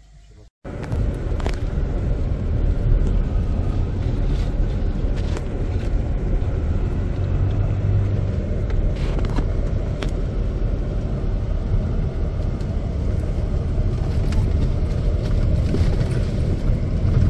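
A vehicle driving, heard as a steady low road rumble with a few small knocks and rattles. It starts suddenly about half a second in.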